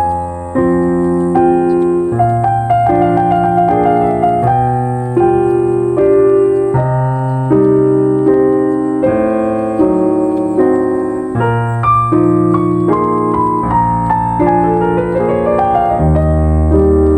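Background music: gentle piano playing sustained chords that change about once a second, with a melody line gliding down and another rising about three-quarters of the way through.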